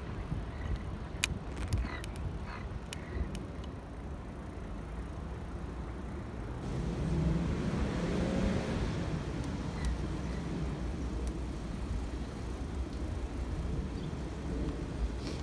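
Steady low wind and tyre rumble from a moving bicycle, with a few sharp clicks in the first three seconds. A car passes about seven to ten seconds in, its noise swelling and then fading.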